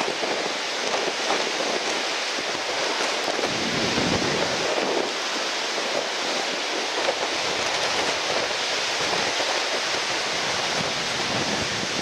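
Steady rushing of surf and strong wind at the shore, an even roar with no separate events standing out.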